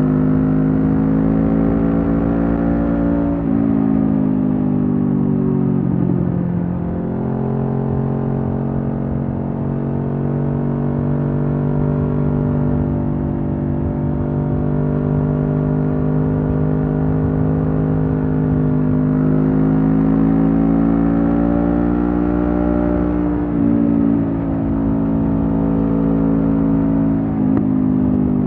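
Honda CB500F's 471 cc parallel-twin engine running through a Mivv GP Pro aftermarket slip-on exhaust while riding. The engine note climbs slowly and drops sharply a few times.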